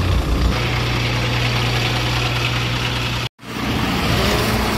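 Lorry engine idling with a steady low hum, heard from inside the cab. Just past three seconds the sound cuts off for an instant and gives way to open road noise with engines running.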